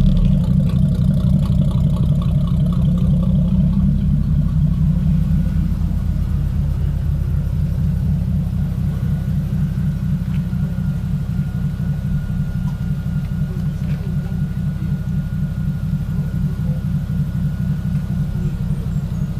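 Deep, steady subwoofer bass from a car-audio system of four 15-inch DD Audio subwoofers in a sixth-order blowthrough enclosure, playing music. Only the low end comes through, with almost nothing above the bass.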